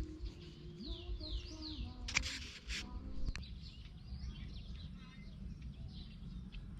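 Small birds calling with quick, falling chirps over faint low background tones. A short noisy burst comes about two seconds in.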